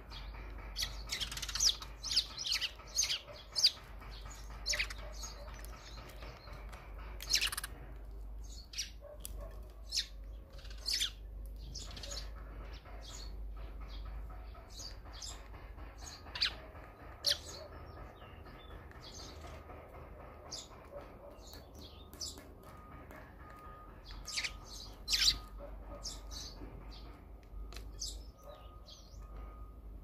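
Eurasian tree sparrows chirping at a seed feeder: short, sharp, high notes in quick bursts, busiest about a second in, around seven seconds, midway and again near the end.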